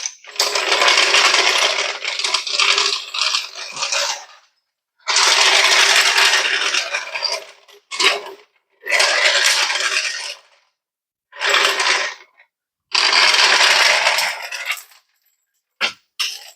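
A power tool run in five bursts of one to four seconds each, a steady hum under a harsh noise, stopping dead between bursts.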